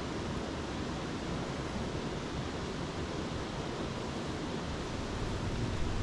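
Creek water rushing steadily, an even hiss.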